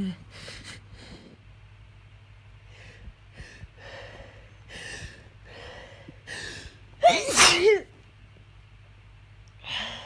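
A person sneezing: a run of short, catching inhales over several seconds builds to one loud, voiced sneeze about seven seconds in, and another breath comes near the end.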